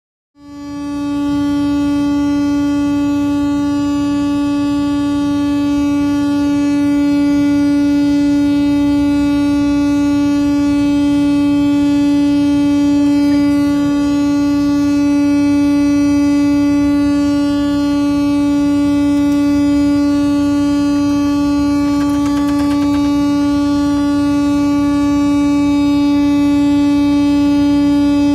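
Semi truck's air horn blaring one continuous, steady tone without a break, starting abruptly just after the start. The horn is stuck on because its pull-cord lever jammed after the cord was yanked too hard.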